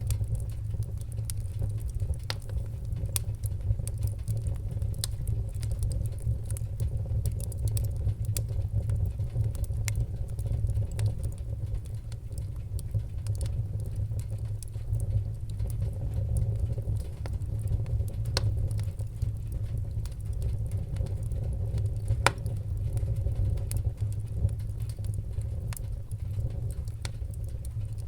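Wood fire burning with a steady low rumble and frequent sharp crackles and pops, a few louder snaps scattered through.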